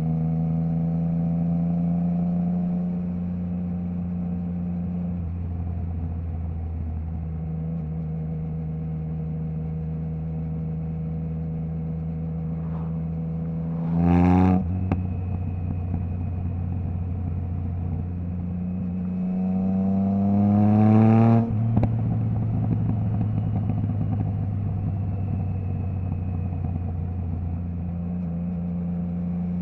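Triumph Trident 660's three-cylinder engine through a Zard stainless full exhaust with the baffle removed, cruising on a steady note. About halfway through it gives a short sharp rev, and later a longer climb in revs that cuts off suddenly, as at a quickshifter gear change.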